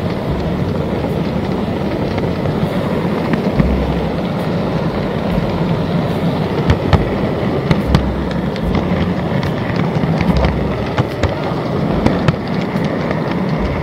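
N-gauge model C57 steam locomotive running on the layout track: a steady motor and wheel rumble with many irregular sharp clicks from the wheels on the rails, heard close up from a camera riding on the track just ahead of it.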